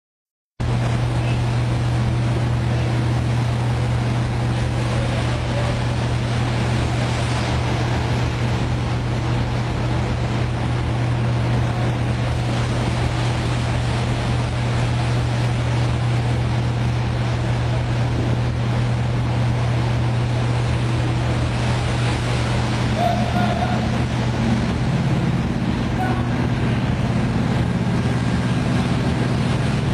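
Steady low engine drone with churning, splashing water as a CTM landing craft manoeuvres into a ship's flooded well deck in rough water.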